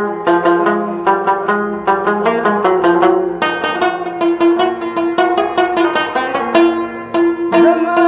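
Rubab played in quick runs of plucked notes.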